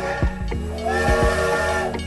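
Train whistle sounding twice: a short toot, then a longer held one of about a second, over a steady low hum.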